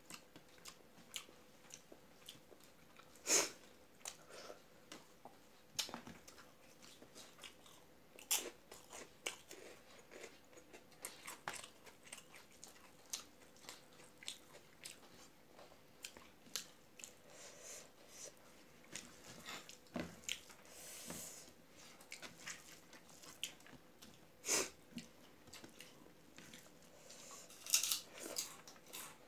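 Close-up eating sounds: chewing, wet mouth clicks and smacks and occasional crunches as rice is eaten by hand, with fingers scraping the rice across a steel plate. The sharpest clicks come about three seconds in and again near the end.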